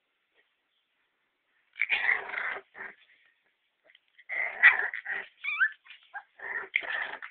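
Two bull terrier and Staffordshire terrier puppies fighting: rough growls and snarls in short bursts starting about two seconds in, with a brief high squeal partway through.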